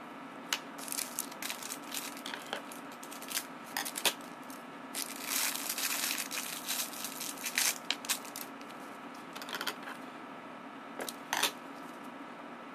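Thin plastic wrapper crinkling and tearing as a plastic transfer pipette is unwrapped by gloved hands, with irregular rustles and sharp clicks, densest around the middle, and a couple of clicks near the end. A steady low hum runs underneath.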